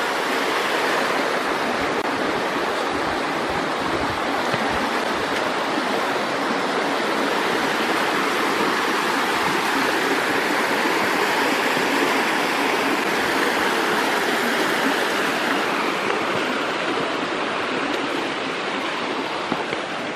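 Rocky mountain stream pouring over a small cascade: a steady rush of water, easing a little near the end.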